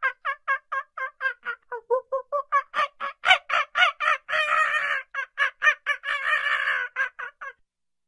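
Capuchin monkey calling: a rapid run of short repeated calls, about four a second, with two longer, rougher stretches in the middle, stopping shortly before the end.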